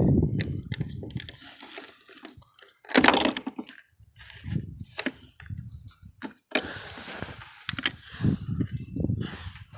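Hand tools working on the T-top rail bolts: a ratchet wrench clicking that stops about a second in, then scattered metallic clinks and knocks of tools and fasteners, with a sharp clatter about three seconds in.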